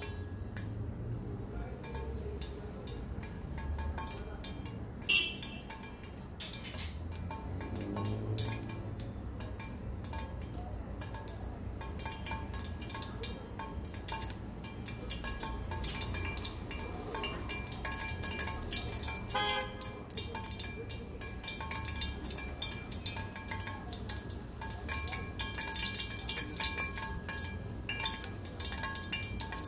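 Cooking oil heating in a stainless steel pot on a gas burner: scattered faint crackles and ticks that come more often toward the end as the oil gets hot, over a low steady hum.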